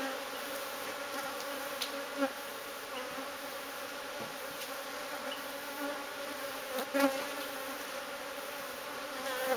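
Honeybees buzzing steadily as a disturbed colony around its opened hive, a steady many-toned hum, with a few light knocks about two seconds in and again near seven seconds.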